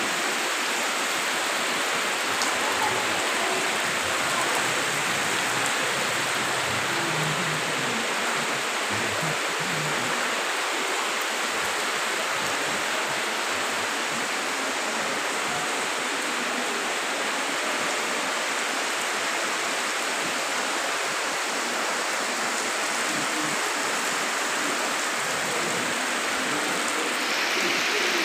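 Heavy rain pouring down with a steady, even rushing hiss.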